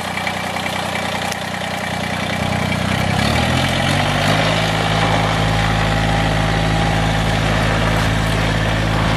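Tractor engine running steadily and growing louder as it draws nearer. Its engine note shifts about three to four seconds in, then holds steady.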